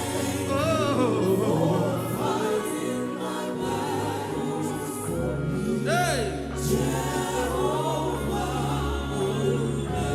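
Live gospel worship music: sustained chords over a bass line, with singing and one rising-and-falling vocal run about six seconds in.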